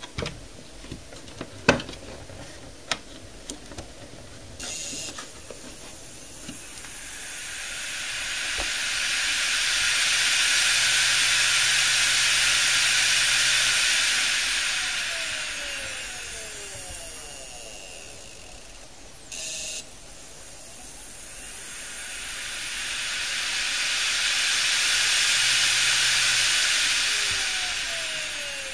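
Opened Western Digital WD5000KS 500 GB hard drive with four bare platters spinning up and winding down twice: each time a rising hiss of air off the platters swells, holds a few seconds, then fades with a falling tone as the spindle slows. It is a failed drive that starts up and winds down again instead of coming ready. A few clicks from the power connector being pushed in come first, and a short buzz comes just before each spin-up.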